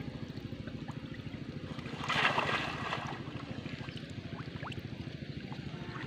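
Pond water sloshing and splashing, with a louder splash about two seconds in, over a steady low, rapid throbbing.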